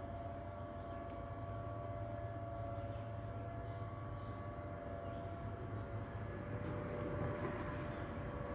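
Distant outdoor warning sirens, a Federal Signal 2001 among them, wail steadily during a scheduled monthly test rather than a real alert. Insects trill at a high pitch over them.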